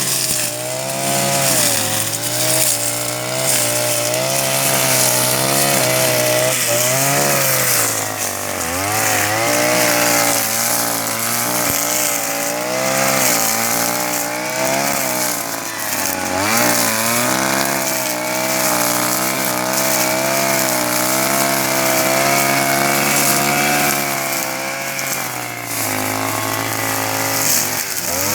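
Husqvarna 143R-II two-stroke brush cutter running near full throttle while cutting grass. Its engine pitch dips and recovers several times as the cutting head takes the load.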